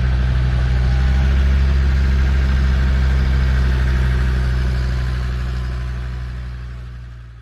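Off-road vehicle engine running steadily at a low, even idle, fading out over the last couple of seconds.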